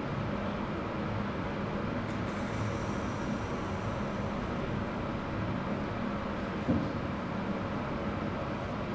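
Steady room noise with a low hum, and one short knock about seven seconds in.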